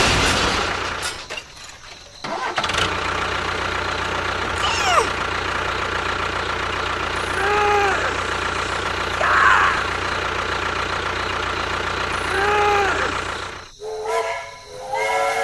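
A steady low engine drone that drops out briefly near the start, then runs on evenly. A few short pitched calls sound over it, and a voice comes near the end.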